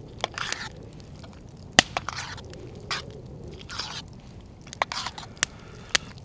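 Spoon scraping and clinking against the inside of a metal billy can while thick chili con carne and rice are stirred, in short irregular strokes with a few sharp clicks.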